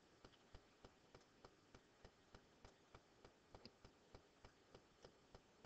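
Near silence with faint, regular ticks, about three a second.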